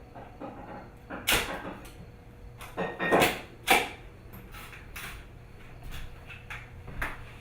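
Handling noises: a few short knocks, scrapes and rustles as plastic toys are moved and set in place, the loudest cluster a little past the middle.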